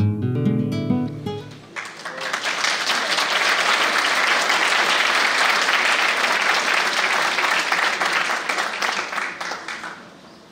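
Plucked-string music ending about two seconds in, then an audience applauding steadily, fading out near the end.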